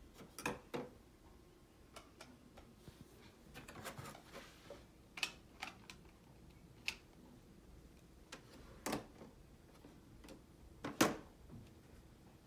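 Light clicks and knocks of plastic toy dishes and play food being picked up and set down, scattered at irregular times, the loudest about eleven seconds in.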